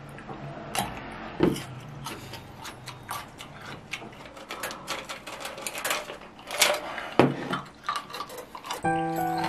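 Crunching bites and chewing of a raw cucumber, with a couple of short vocal sounds from the eater as the chili heat burns. Light background music comes in near the end.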